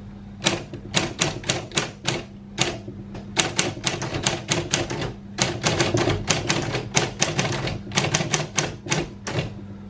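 Silver-Reed 1200CR electric typewriter typing: runs of sharp key strikes, several a second, broken by brief pauses, over the steady hum of its running motor.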